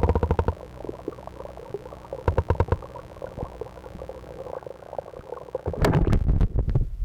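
Water gurgling close to the microphone, with clusters of sharp clicks and knocks about two seconds in and again, louder, near the end.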